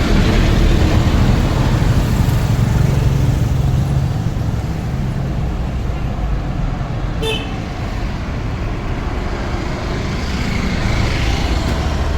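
Motor vehicle running steadily amid traffic noise, louder in the first few seconds, with one brief high-pitched toot about seven seconds in.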